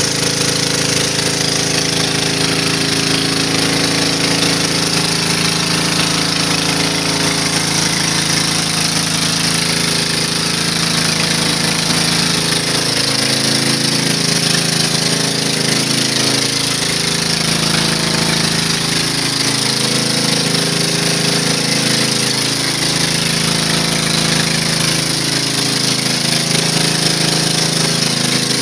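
Pressure washer running steadily, with its spinning surface cleaner attachment spraying water onto concrete. A steady motor drone lies under a loud, high water-spray hiss.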